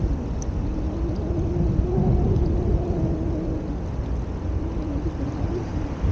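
Continuous low rumble of a vehicle engine, with a steady, slightly wavering hum over a heavy wind-like roar.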